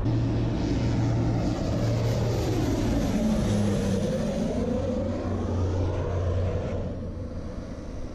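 The twin turboprop engines and propellers of a Britten-Norman BN-2T Turbine Islander, passing low overhead. The engine and propeller tone drops in pitch about three and a half seconds in as it goes over, then fades toward the end.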